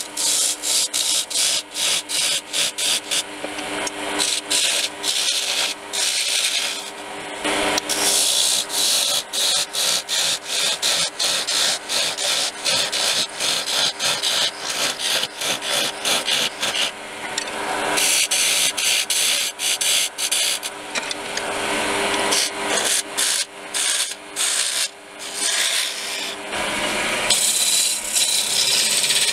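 Wood lathe parting tool cutting a groove into a spinning green pear-wood blank to separate lid from body: a rapid, rough scraping with a steady motor hum underneath, the cut easing off briefly now and then.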